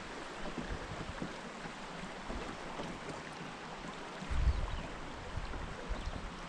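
Steady hiss of river water and breeze, with a short low rumble about four seconds in.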